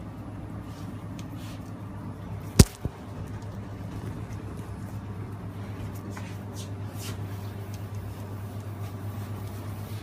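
Steady low hum of pizzeria kitchen machinery, with one sharp knock, followed by a smaller one, about two and a half seconds in, likely a tool or dough striking the work counter.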